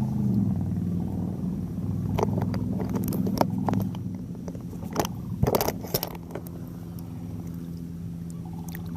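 A steady engine drone that fades after about four seconds, with a scatter of sharp clicks and rattles between about two and six seconds in.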